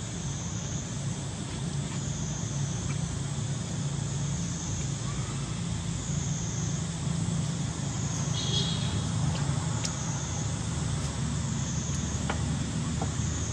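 Steady background noise: a low hum under a high hiss that swells and dips about every two seconds, with one brief high squeak about eight and a half seconds in.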